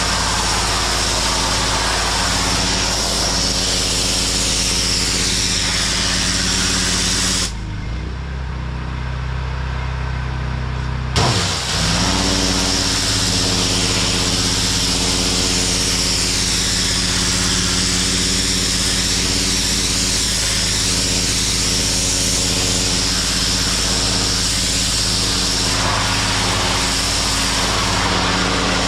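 Gas-engine pressure washer running steadily under the hiss of its high-pressure spray on concrete. About seven seconds in the spray stops for some three seconds, leaving only the engine, then it comes back with a sharp burst.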